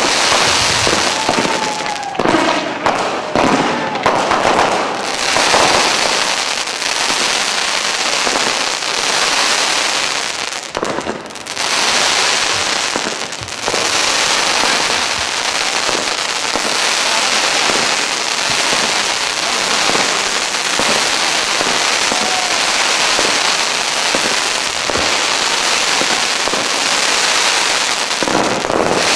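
Fireworks going off in a dense, continuous barrage of bangs and crackling, with a brief lull about eleven seconds in.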